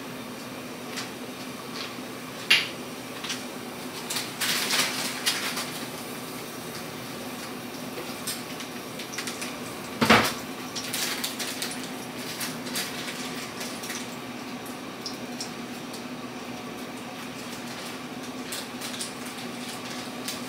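Dishes and kitchenware being handled and set down: a sharp clink about two and a half seconds in, a run of rattling clatter a little later, and a loud knock about ten seconds in, followed by lighter clinks, over a steady low hum.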